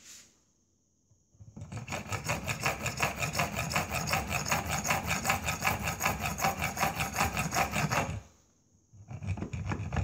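Junior hacksaw sawing through a small brass rod to part it off, in quick, even back-and-forth strokes. The sawing starts about a second in, pauses briefly near the end and starts again.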